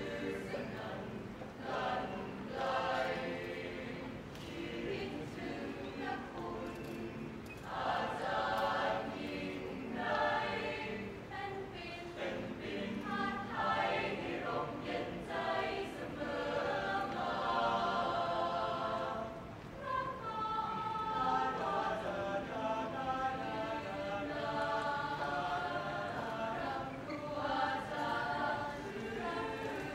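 A choir singing together in harmony, with long held notes.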